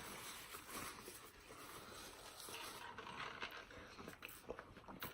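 Faint eating sounds at a table: chewing, with scattered small clicks and rustles.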